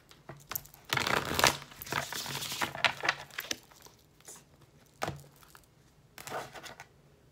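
A deck of tarot cards shuffled by hand. Dense runs of cards rustling and slapping together come in the first few seconds, then a few single light card clicks with quiet gaps between.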